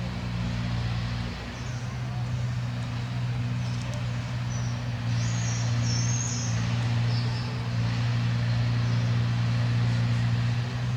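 A motor vehicle's engine running steadily at idle, a low even hum, with a few faint high chirps in the middle.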